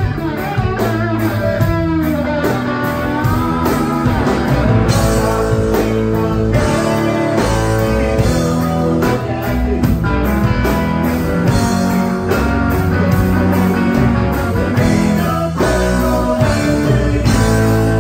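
Live rock band playing: electric guitars, electric bass and a drum kit, with a lead guitar bending notes in the first few seconds.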